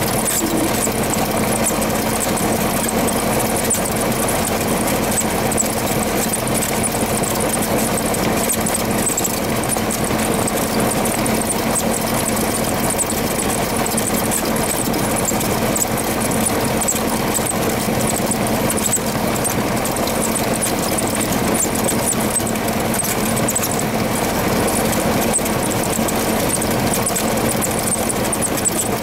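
Cessna 172RG's four-cylinder Lycoming engine and propeller running steadily at low taxi power, heard from inside the cockpit.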